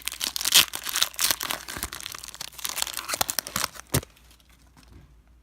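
Wrapper of a Panini Contenders basketball trading-card pack being torn open and crinkled, with busy crackling for about four seconds. A sharp snap follows, then fainter rustling.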